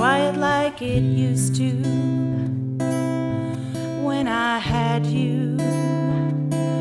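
Country-rock song recording, an instrumental passage: strummed acoustic guitar over sustained low notes, with a lead melody that slides in pitch near the start and again about four seconds in.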